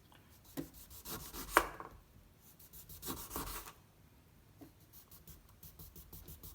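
A knife cutting a lemon on a cutting board: a few sawing strokes through the fruit, with a sharp knock of the blade on the board about a second and a half in, then lighter quick ticks near the end.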